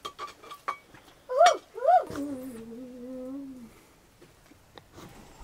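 A voice making two short calls that rise and fall in pitch, followed by a long, level hum of about a second and a half.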